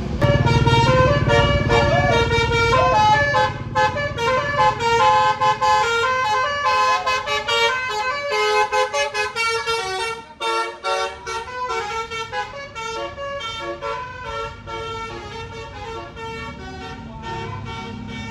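Tour bus's basuri melody horn playing a tune in quick stepped notes, over the low rumble of the passing bus engine. The tune breaks off briefly about ten seconds in, then carries on.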